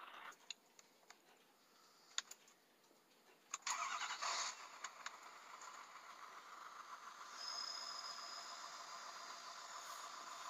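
A 2011 Ford F-250's 6.7 L Power Stroke turbo-diesel V8 starting: a few faint clicks, then a short crank and catch about three and a half seconds in, and it settles into a steady idle. A high thin whine joins the idle about seven seconds in.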